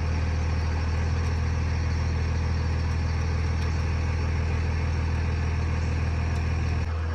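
Wrecker's engine idling steadily, a deep even hum, with a small drop in level near the end.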